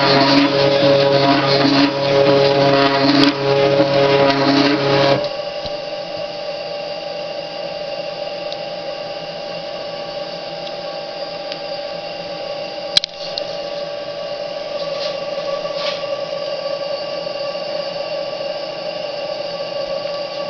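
Stepper motors of a small CNC machine drawing with a marker, whining in several steady tones as the pen moves, then stopping abruptly about five seconds in. A quieter steady machine hum remains, with one sharp click a little past halfway.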